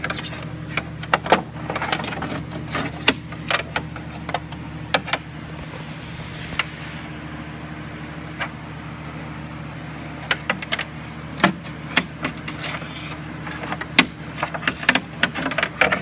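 Irregular metallic clicks, taps and rattles of a magnet pickup tool probing inside a car door's hollow lower cavity, knocking against the door's inner sheet metal while fishing for a dropped lock cylinder. A steady low hum runs underneath.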